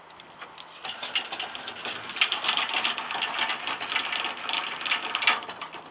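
Old refrigerator compressor of a 1958 ZIL-Moskva fridge, powered up after 20 years idle, running with a fast mechanical rattle and shaking. It starts about a second in and cuts off suddenly near the end.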